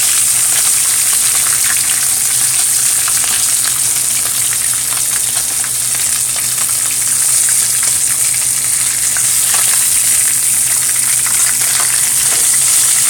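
Food frying in a pan of hot oil: a steady sizzle with fine crackling.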